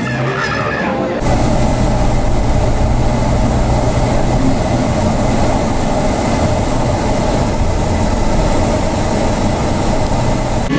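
Steady road noise inside a moving van: an even rumble and hiss of tyres and engine heard from the back seat, starting suddenly about a second in and holding unchanged.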